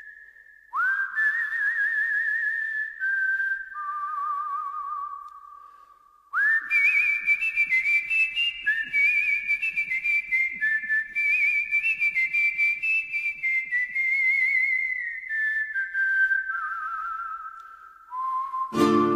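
A whistled melody, one long phrase after another of held notes with vibrato that step gradually downward, with a short break partway through. A plucked guitar comes in right at the end.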